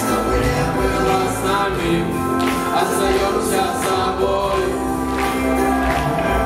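A group of voices singing together over a recorded backing track with a steady bass line.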